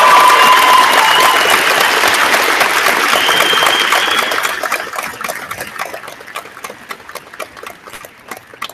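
Large crowd applauding and cheering, with a few held shouts over the clapping. After about four seconds the applause dies away to scattered single claps near the end.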